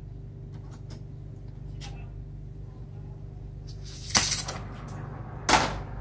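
A gas brazing torch being lit: two short rushes of gas noise, about four seconds in and again a second and a half later as the flame catches, over a steady low hum.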